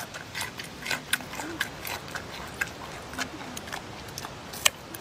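Crunching and chewing of a raw carrot: irregular sharp crunches, with faint chewing between them.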